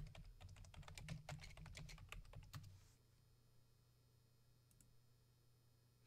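Typing on a computer keyboard: a quick run of keystrokes lasting about three seconds, then two faint clicks.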